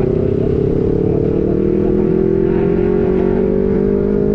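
Motorcycle engine running through an aftermarket prototype racing exhaust while under way, its pitch rising slowly and steadily as the bike gathers speed.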